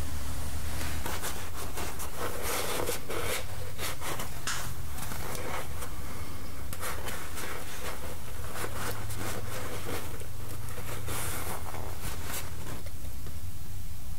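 Irregular short rubbing and scraping strokes as a shop towel wipes the cast-iron pump mounting face on a Ford tractor engine, stopping shortly before the end, over a steady low hum.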